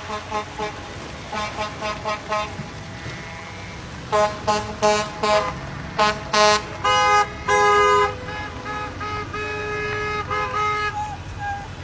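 Car and truck horns honking over and over as pickups and a semi pass: quick runs of short toots, then louder blasts from about four seconds in, with a couple of longer held honks near the middle, over the steady sound of engines and tyres.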